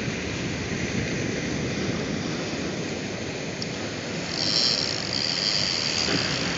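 Steady wash of surf on the beach. About four and a half seconds in, a high-pitched whine joins it, strongest for about a second and then fainter.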